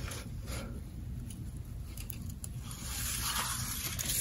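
Scissors cutting through printer paper: a few faint snips in the first couple of seconds, then soft paper rustling as the cut pieces are handled.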